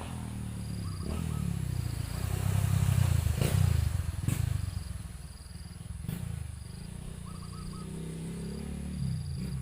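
Motorcycle engine running nearby, swelling to its loudest a few seconds in and then easing off as it passes, with a few sharp clicks.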